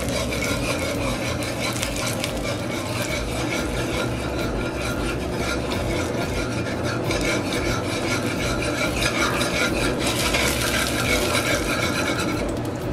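Metal spoon stirring and scraping around a metal pot of brown sugar melting in hot oil, with the sugar frothing as it begins to brown for the stew.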